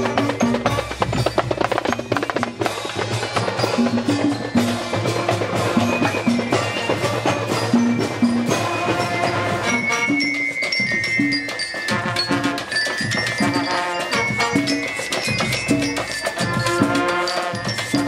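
Music with a steady beat: a melody on bright, bell-like mallet percussion over drums and percussion.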